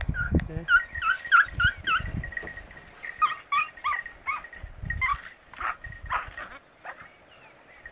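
A dog yelping in quick runs of short, high-pitched yips, several a second, with low knocks and rustling underneath.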